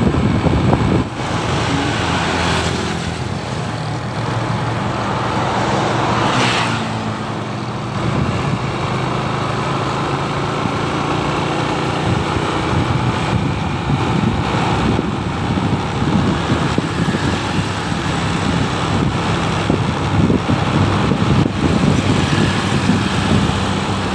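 A moving vehicle's engine running at a steady pitch under road noise, with other traffic passing.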